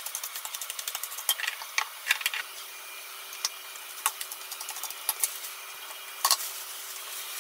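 Metal measuring spoon stirring and scraping potato starch and bread crumbs together in a tray: quick gritty ticks at first, then a few sharper clicks and taps. A faint steady hum comes in about two and a half seconds in.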